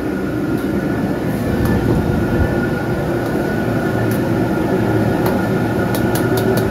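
Commercial gas wok burner running steadily under a wok of boiling liquid. A ladle clicks against the wok a few times near the end.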